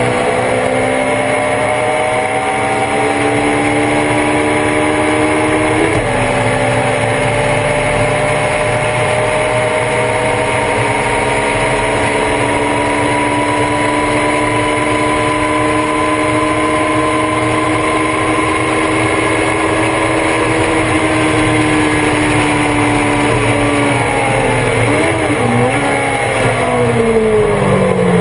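On-board sound of a Thunder Roadster race car's engine at racing speed. It shifts up about six seconds in, then holds a long full-throttle pull with the pitch climbing slowly. Near the end the revs fall in steps as it downshifts and brakes.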